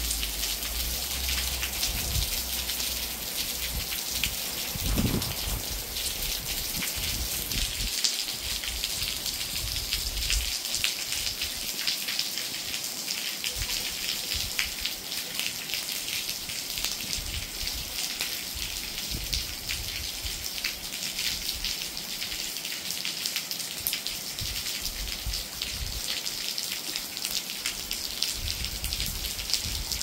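Steady rain falling, a constant hiss with a dense patter of individual drops.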